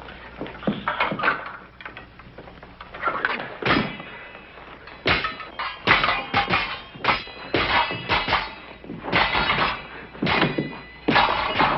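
Épée blades clashing in a fencing bout: irregular strikes of metal on metal, each with a short ring, sparser at first and coming faster and denser from about five seconds in.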